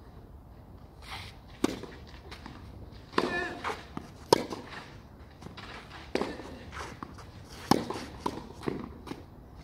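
Tennis rally on a clay court: three loud pops of racket strings hitting the ball, about three seconds apart, with softer hits and bounces in between. A short vocal sound a little after three seconds in.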